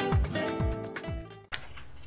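Background acoustic guitar music, plucked notes fading and then cutting off abruptly about one and a half seconds in, leaving quiet room tone.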